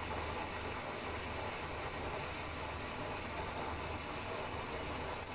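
Vacuum cleaner running steadily, just switched on: an even, unbroken rush of motor and air noise.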